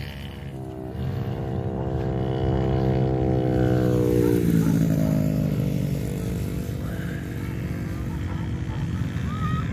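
Small flat-track dirt bike engines running hard around the dirt oval. One engine holds a steady high pitch for a few seconds, then drops in pitch about four seconds in as the rider backs off. A rougher mix of engine noise follows.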